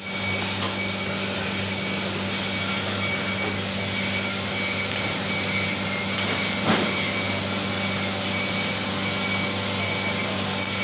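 Steady low machine hum with an even background hiss, and a light knock about seven seconds in.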